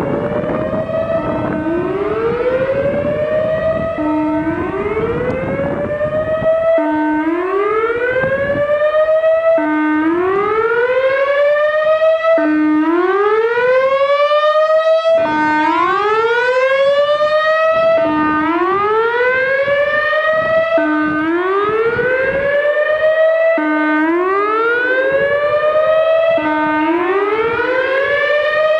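Whelen WPS 3016 electronic outdoor warning siren sounding its whoop tone: about ten rising whoops, each a short low note sweeping upward, repeating roughly every three seconds. The siren is malfunctioning on this tone, which the owner thinks could be a blown speaker driver. A low rumble runs underneath for the first several seconds.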